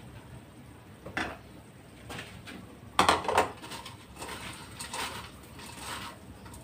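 A serving spoon knocking and scraping against a small bowl as food is scooped. One knock comes about a second in, a loud clatter of several strokes about three seconds in, then lighter taps.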